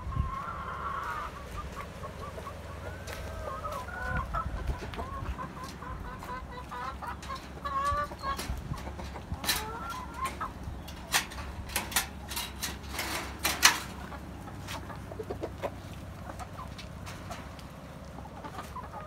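Domestic hens clucking in a coop, short calls coming one after another throughout. Several sharp clicks and taps come in the middle.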